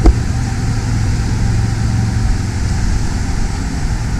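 A motor vehicle's engine running at idle with a low, steady rumble that fades after about two seconds, and a single sharp thump right at the start.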